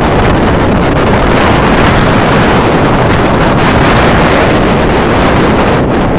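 Wind buffeting the phone's microphone: a loud, steady rushing noise with no break.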